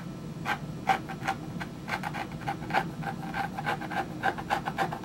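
A tool scraping across wet leather in a series of short, quick strokes, several a second, from about half a second in.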